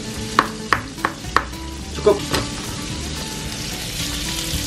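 Chef's knife chopping garlic on a plastic cutting board, four quick chops in the first second and a half. Underneath, smoked beef fries in oil in a pan with a steady sizzle, and the minced garlic is dropped into the oil near the end.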